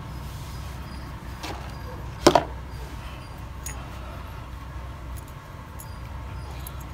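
Small metal clicks and clinks from hand assembly of a clutch slave cylinder, its spring and piston handled against the metal cylinder body, with one sharp click, the loudest sound, a bit over two seconds in. A steady low hum runs underneath.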